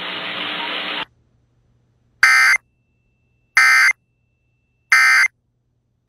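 Emergency Alert System end-of-message code: three short, identical digital data bursts, evenly spaced about a second and a third apart, sent to mark the end of the alert. Before them, a steady broadcast hiss cuts off about a second in.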